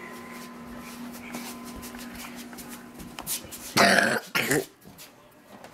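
A child coughing twice in quick succession, close to the microphone, about four seconds in. A faint steady hum runs underneath until about three seconds in.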